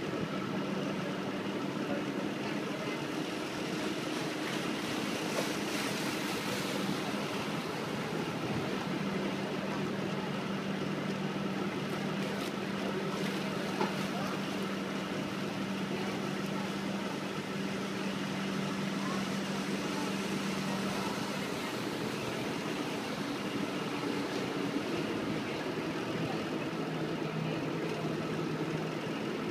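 Waterbus engine running steadily as the boat cruises, a low drone under the rushing wash of water and wind.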